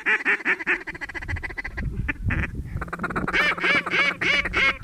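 Mallards quacking in a rapid run of short quacks, several a second, with a brief break near the middle and a louder run from about three seconds in.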